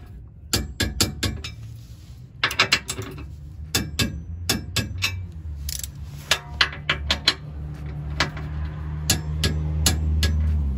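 Ratchet of a click-type torque wrench with a 13 mm socket clicking in short runs of quick, sharp clicks as the skid plate's mounting bolts are tightened. A low rumble builds underneath in the second half.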